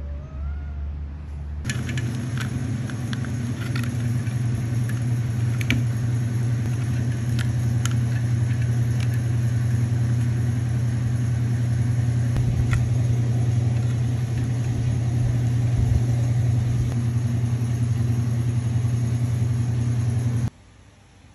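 A steady low mechanical hum, like a motor running, with scattered light clicks over it; it starts and cuts off abruptly.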